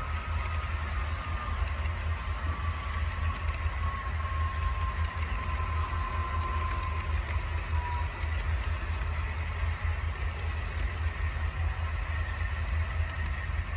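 HO scale model trains running on the layout track: a steady low hum and rumble of motors and wheels on rail, with a faint whine that drifts slightly lower and fades about eight seconds in.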